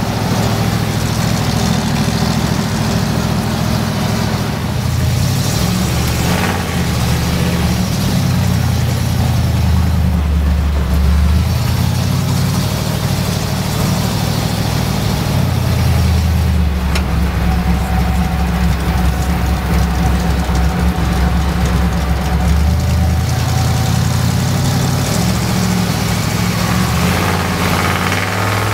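Ford FE V8 of a 1973 Ford F100 pickup running under way, heard from inside the cab. Its note steps lower and back up a few times as the truck changes speed.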